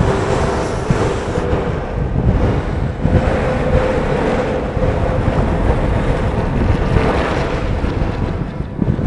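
Buses passing close on a wet street: engine hum and tyre hiss on wet tarmac, with wind buffeting the microphone. The engine hum is steadiest about three to five seconds in, as a single-deck bus goes by.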